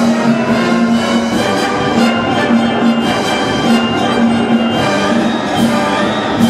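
Elementary school wind band playing a piece in concert, brass and woodwinds over percussion, with a steady beat.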